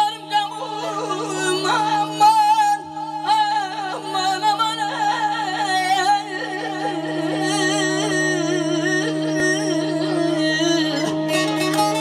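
A man singing a wavering, ornamented melody without words into a microphone, in Azerbaijani folk style, over a steady held drone, with saz and keyboard accompaniment.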